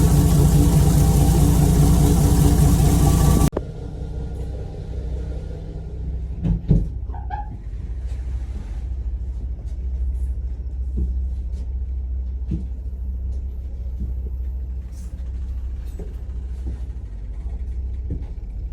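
Steady low diesel engine rumble, very loud and full for the first three and a half seconds, then cutting suddenly to a quieter low rumble with scattered faint knocks.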